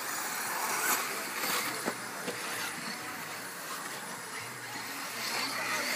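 Electric 1/8-scale RC buggies running on a loose dirt track: the high whine of their electric motors over the hiss of tyres on dirt, with a few sharp knocks from the cars.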